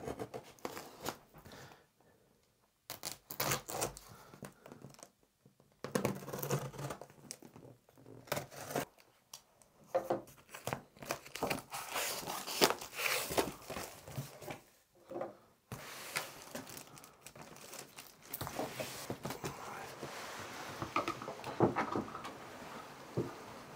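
A knife slicing through packing tape on a large cardboard box, then the cardboard flaps being pried open. The scraping and tearing come in irregular bursts with short gaps. In the second half the rustle of cardboard and plastic wrap is more continuous.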